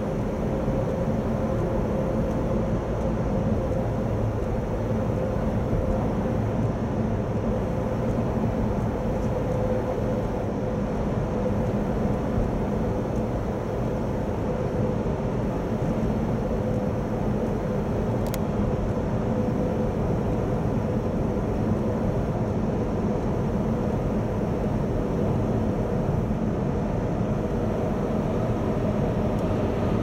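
Steady road and engine noise inside a Honda Odyssey's cabin as it cruises at an even speed through a road tunnel, tyre roar echoing off the tunnel walls, with a faint steady hum under it.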